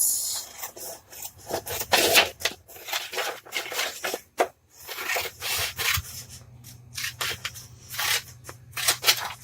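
Scissors cutting paper in a series of irregular snips, some short and some drawn out.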